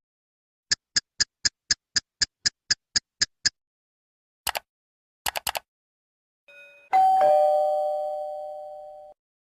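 Sound-effect clips in sequence: a run of about a dozen quick high ticks, about four a second, then a few short clicks, then a bell-like chime struck once that rings and fades over about two seconds.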